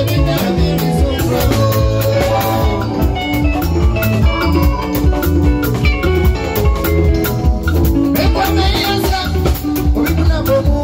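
Live highlife band playing an upbeat groove: a drum kit keeping a fast, steady beat under an electric bass line and chords.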